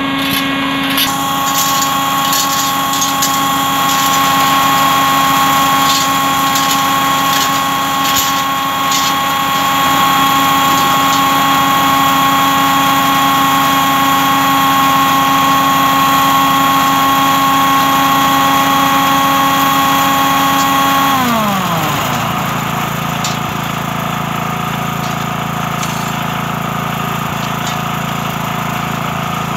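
Small engine-driven machine running at a steady high speed, then throttled down about two-thirds of the way through, its pitch dropping within a second to a lower, steady idle.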